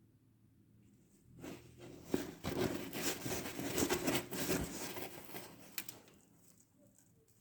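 A burst of crackling, rustling noise, thick with small clicks, starts about a second and a half in and fades out near the end after about four and a half seconds.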